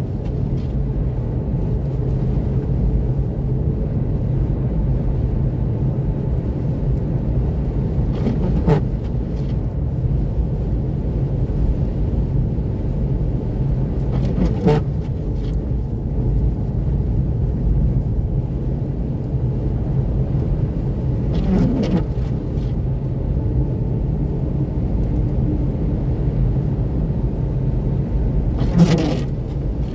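Steady rumble of tyre and road noise from a Seat Mii Electric on Nokian R5 winter tyres cruising at about 90 km/h on a snow-covered highway, with no engine sound. Four brief sweeping swishes cut through it, about six seconds apart.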